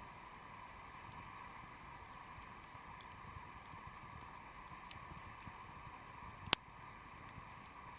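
Outdoor wood fire burning quietly, with a few faint crackles and one sharp pop about six and a half seconds in.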